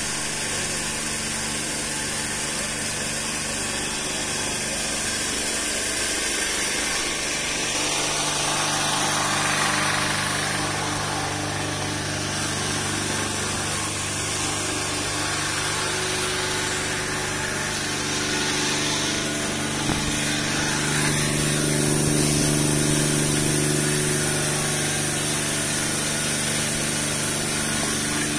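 Sanitization tunnel's disinfectant misting system running steadily: a pump motor's constant hum under the hiss of the spray nozzles.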